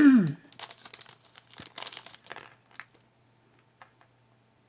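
Crinkling and rustling of packaging being handled, a run of small crackles over a couple of seconds, as jewelry is brought out to show. It opens with a short voiced sound falling in pitch, the loudest moment.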